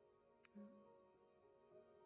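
Very faint, soft background music with sustained held notes, close to silence, and a short murmured 'hmm' about half a second in.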